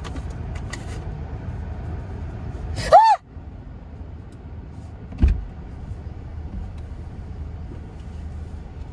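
A woman's short, loud scream about three seconds in, rising and falling in pitch; she has been startled by a large bug next to her. Around it is the steady low rumble of the car cabin, with a single thump about five seconds in.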